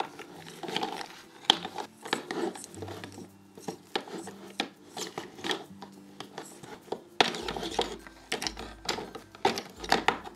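Wooden play-food pieces being tossed with wooden salad servers in a toy bowl: irregular clattering knocks and clicks of wood on wood and against the bowl, with some rubbing.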